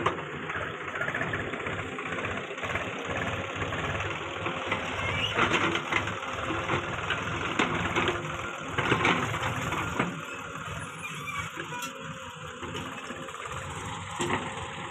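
Diesel engines of a backhoe loader and tractor running steadily, with occasional sharp clanks and knocks. The sound eases down a little about ten seconds in.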